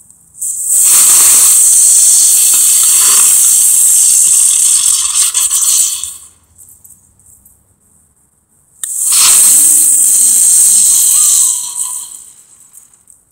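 Small ground fountain firework spraying sparks with a loud, steady hiss, in two spells: about five seconds long, then a pause of nearly three seconds, then about three seconds more before it dies away.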